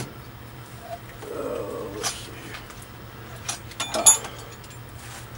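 Hand-held shop items being handled and set down while rummaging for a tool: scattered clicks and knocks, the loudest about four seconds in, over a low steady hum.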